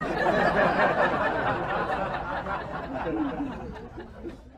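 People's voices with laughter, starting suddenly and fading out near the end.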